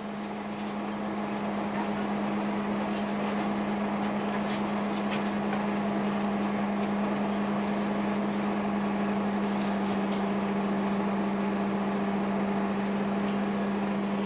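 Cabin noise of a single-deck city bus under way: engine, air-conditioning and road noise with a steady low hum, growing a little louder in the first couple of seconds.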